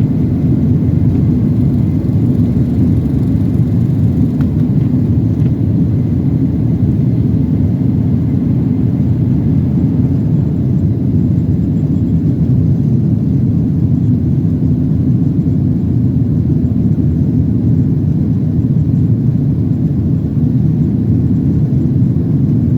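Jet airliner's engines and rushing air heard from inside the passenger cabin as a loud, steady low rumble that holds even throughout, typical of the takeoff and climb.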